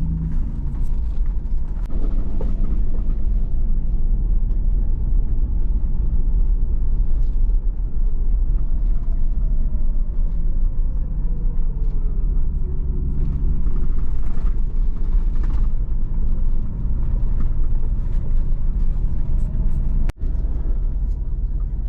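Off-road vehicle driving slowly up a rough dirt trail: a steady low engine and drivetrain rumble, with a brief dropout near the end.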